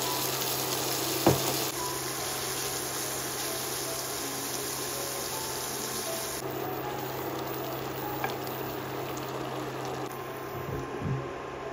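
Pork liver and onions in a watery tomato sauce sizzling and bubbling in a frying pan, with a wooden spatula stirring in it. A single sharp knock about a second in.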